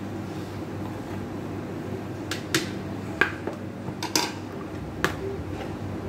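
Metal spoon clinking against a plastic bowl of white powder: several sharp clinks in the middle, the loudest a little past three seconds in, over a steady low hum.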